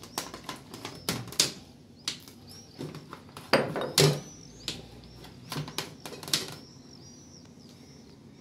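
A wheel pizza cutter rolling through baked pizza in metal baking trays: irregular clicks and knocks of the cutter against the tray, loudest about three and a half and four seconds in. A faint high chirp repeats over the middle of the stretch.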